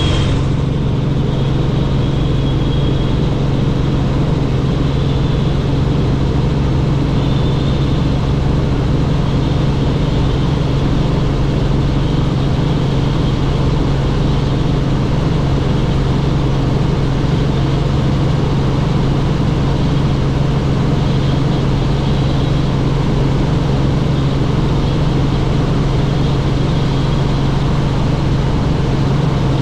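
Helicopter in flight: engine and rotor running steadily, an even, loud low hum with no change in pitch.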